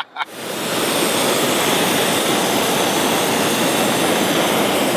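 Hot air balloon's propane burner firing: a loud, steady rushing blast that starts sharply a moment in and holds without a break.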